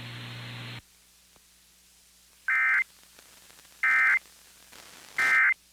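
Emergency Alert System End-of-Message signal: three short bursts of the SAME digital data screech, about 1.3 s apart, marking the end of the alert. Before them a low steady hum cuts off under a second in.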